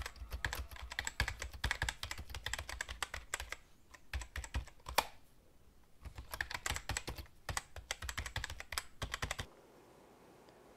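Computer keyboard typing sound effect, rapid key clicks in two runs with a pause in the middle and a lone click between them, stopping a little after halfway through the last third.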